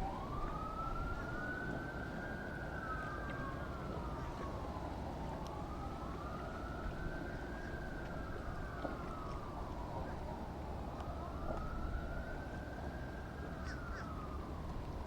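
Emergency vehicle siren in a slow wail, rising and falling in pitch about every five seconds, three cycles, over a steady low rumble.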